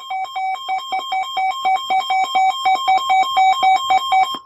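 Emergency alert attention tone before a severe thunderstorm warning message: a steady high tone over a lower tone beeping rapidly, about five beeps a second, cutting off abruptly at the end.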